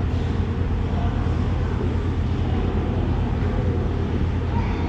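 Steady low rumble of background noise from a busy fish market floor, with no distinct single event standing out.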